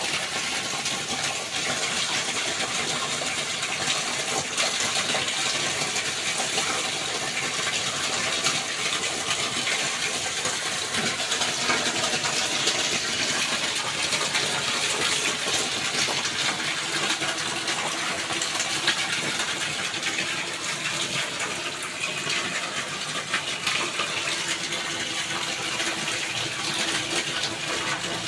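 Water splashing and gushing steadily.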